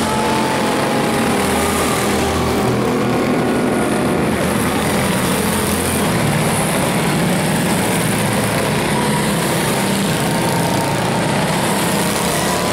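Quarter midget race cars' small single-cylinder engines buzzing on a dirt oval, several pitches drifting up and down as the cars speed up and slow.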